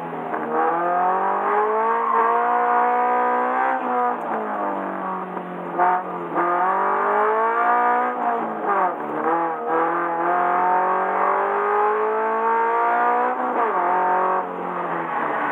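Subaru BRZ's flat-four engine being driven hard around a circuit. Its note climbs in pitch under acceleration and falls away when the driver lifts and brakes, about three times over.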